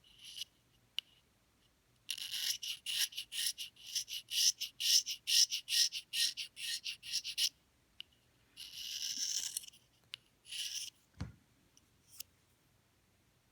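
Reed knife scraping bark off the cane of an English horn reed blank: a quick run of short rough strokes, several a second, then two longer strokes. A single low thump comes near the end.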